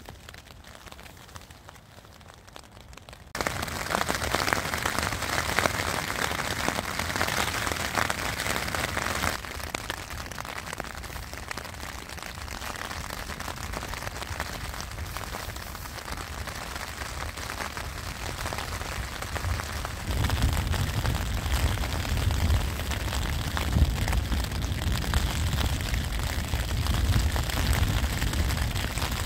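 Rain pattering on a tent's flysheet, heard from inside the tent. It is faint at first and gets suddenly heavier about three seconds in; a low rumble joins the patter about two-thirds of the way through.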